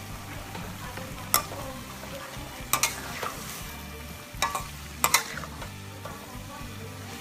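Stir-frying pork, broccoli and carrots in a stainless steel wok: a steady sizzle, with the metal spatula scraping and clanking sharply against the wok several times as the food is tossed.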